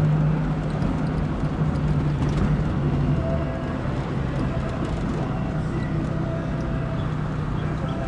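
Engine and road noise inside the cab of a VW Saveiro pickup on the move, a steady low drone over tyre rumble.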